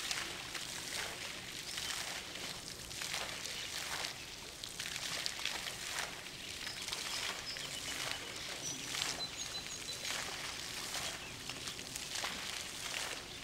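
Outdoor ambience: a steady hiss with faint rustling, and a few brief high bird chirps partway through.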